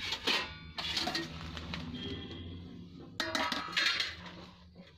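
A stainless steel bowl clinking and scraping in a few short bursts as a hand scoops crumbly laddu mixture from it, over a low steady hum.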